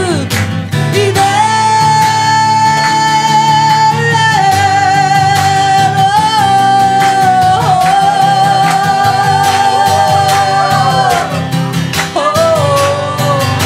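A woman singing long held notes with vibrato, accompanied by a strummed acoustic guitar. The voice holds one note from about a second in, steps down twice, and breaks off about three seconds before the end, leaving the guitar alone briefly before the voice returns.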